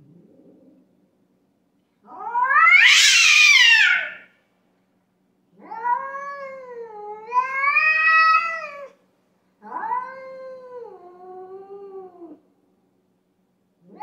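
Cats caterwauling in a territorial standoff: a loud, harsh yowl of about two seconds, then two long wavering yowls that rise and fall in pitch, and another yowl starting at the very end.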